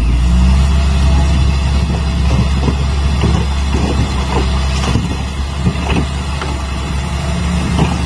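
Heavy dump truck's diesel engine running steadily while it raises its tipper bed, with scattered knocks and clatters of earth and rock sliding out of the bed in the middle.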